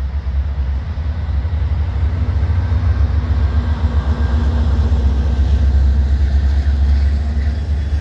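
Diesel-electric freight locomotives of a four-unit CN lashup approaching and passing under power: a deep, steady engine rumble that grows louder to a peak about two-thirds of the way through, then eases slightly.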